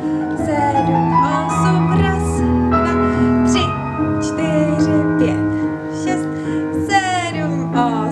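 Piano music for a ballet routine, with long held notes.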